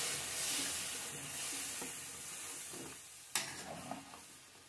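Yogurt and gram-flour batter sizzling as it is poured into a hot kadhai of fried carrots and stirred with a metal spatula; the sizzle fades away, and there is one sharp click a little past three seconds in.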